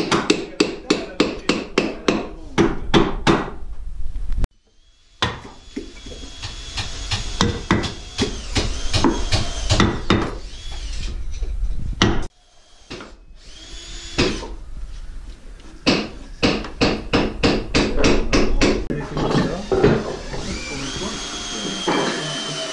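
A mallet striking a chisel against the pine deck planking, in quick runs of blows about three a second, broken off and restarted several times. Over some of the blows, and again near the end, a power tool runs with a steady whine.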